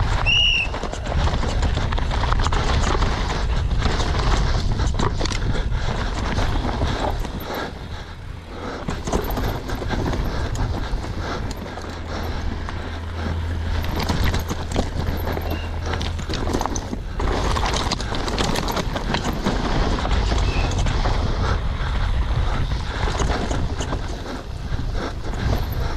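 Downhill mountain bike (Cube Two15) racing down a rough, dry dirt track: continuous rattling and knocking of the chain, suspension and frame over roots and stones, with tyre noise on loose ground. Two brief high squeaks, one just after the start and one about 20 seconds in.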